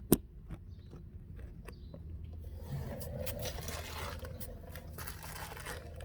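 Handling noises: one sharp click just after the start, then scattered smaller clicks and scraping or rustling from about halfway through.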